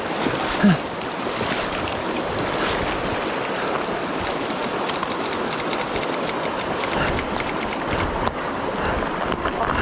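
Rushing mountain stream water, a steady rush with some wind on the microphone.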